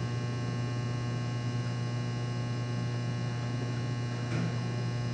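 Steady electrical mains hum with many steady overtones, unchanging throughout; no other clear sound stands out above it.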